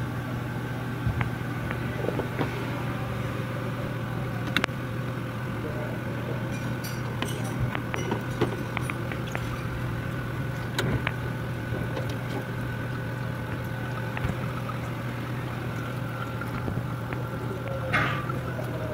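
Steady low mechanical hum, with scattered light clicks and taps from hands and hand tools working among the hoses and parts of a car's engine bay.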